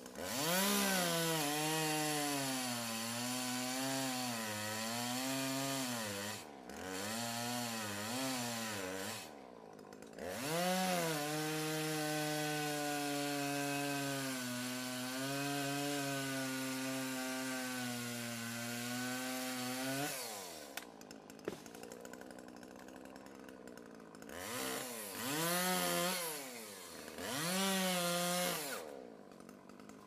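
Electric chainsaw cutting a log. The motor whines up to speed, its pitch dips and wavers as the chain works through the wood, then it winds down. It runs up four times, the middle runs long and the last two short, with quieter gaps between.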